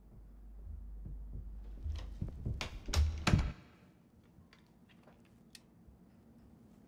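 A door rattling and thudding over a low rumble that swells, with a quick run of knocks loudest a little over three seconds in, then cutting off abruptly. A few faint clicks follow.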